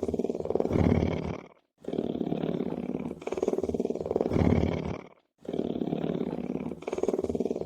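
Lion purring: a rough, finely pulsed rumble in two phases, the second louder, repeating about every three and a half seconds with a short silence between each cycle.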